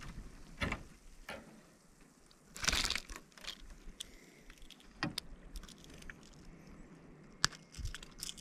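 Handling sounds of a snook being unhooked by hand: scattered small clicks and rattles of the hard plastic lure and its hooks, with a louder brief rustle about three seconds in and sharp clicks later on.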